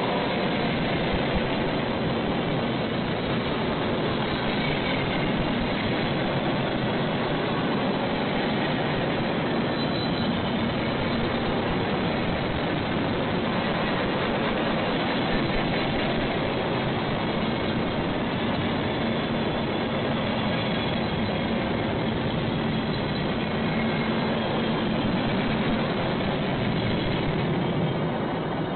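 A train rolling past on the rails, with the steady, unbroken noise of its cars going by.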